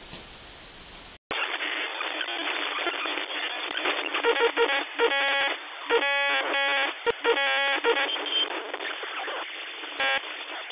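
Faint steady hiss from the surveillance camera's microphone, cut off about a second in by a radio-style outro effect: crackling static, thin as if through a radio speaker, broken by several short bursts of electronic tones.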